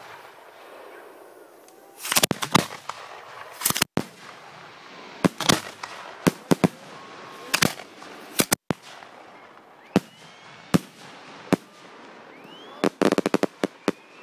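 Aerial firework shells bursting: a string of sharp bangs at irregular intervals, a second or so apart, ending in a rapid cluster of cracks near the end.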